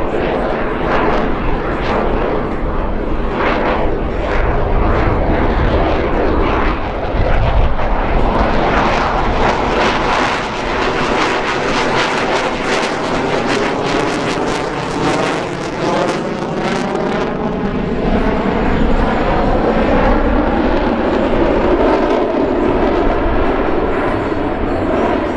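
Loud jet noise from a CF-18 Hornet's twin General Electric F404 turbofans flying a high-power manoeuvre, with a harsh crackle from about nine seconds in until about seventeen seconds. As the jet passes, a rising-and-falling sweep in pitch runs through the noise.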